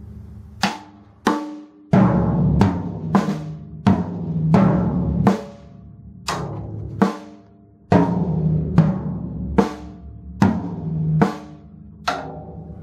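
A boy playing an acoustic drum kit: loud, unevenly spaced strikes on the drums, with the drums' low ring carrying under the hits. The playing breaks off briefly twice near the middle, then picks up again.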